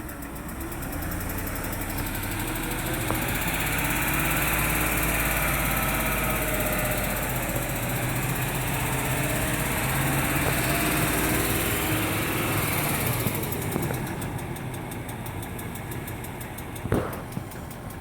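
The Range Rover's BMW-built 4.4-litre M62TUB44 V8 running at idle with the ticking noise that the owner's tags put down to a hydraulic tappet. A sharp click comes about a second before the end.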